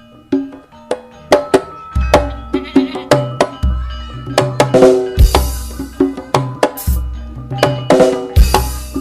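Karawitan (Javanese gamelan) music played for a sound-system check: struck metallophone and drum notes start after a brief pause, then deep bass booms come in about every second and a half under the rhythm.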